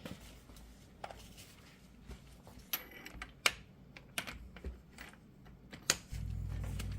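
A few scattered light metallic clicks and taps as tools and axle parts are handled and set in place. Near the end a steady low hum starts abruptly.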